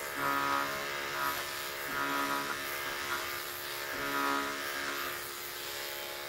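Corded electric clippers running with a steady buzz while shaving short-pile faux fur. The buzz swells in brief bursts every second or two as the blade is pushed through the fur.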